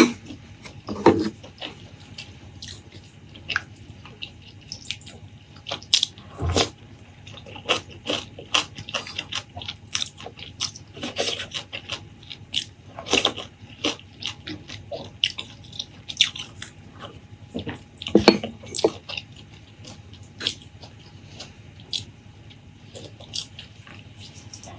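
Close-miked eating sounds: chewing with many short, wet, crackly mouth clicks and a few louder bites, about a second in, around six seconds in and around eighteen seconds in.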